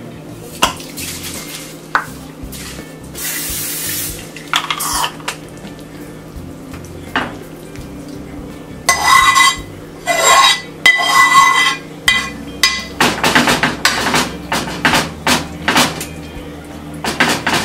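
A metal utensil scraping and knocking against a skillet as dip is scraped out into a baking dish. A few louder ringing scrapes come about halfway through, then a quick run of scrapes and taps near the end.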